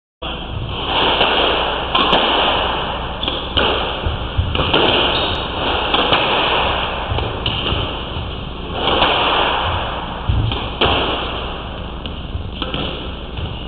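Squash ball being struck by rackets and hitting the court walls in a rally: sharp knocks every second or so, ringing in the enclosed court, over a steady hiss.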